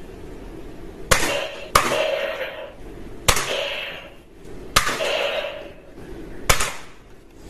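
Toy gun firing five sharp shots, spaced a second or more apart, each followed by a short hissing rattle.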